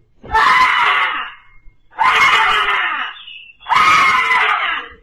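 High-pitched screaming: three long, loud screams, each about a second long, with short gaps between them.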